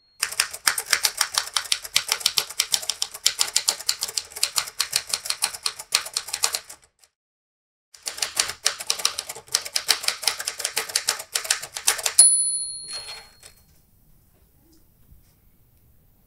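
Typewriter typed in quick runs of keystrokes, pausing for about a second midway. About twelve seconds in, its margin bell rings once, followed by a few last clicks, then it falls nearly silent.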